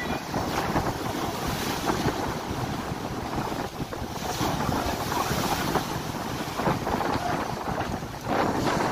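Ocean surf breaking and rushing up a pebble beach in a steady, uneven roar, with wind noise on the microphone. A wave surges louder near the end.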